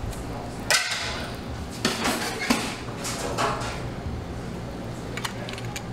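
Kitchen clatter: a sharp knock about a second in, then a few bumps and scrapes and some light clicks near the end, over a steady low hum.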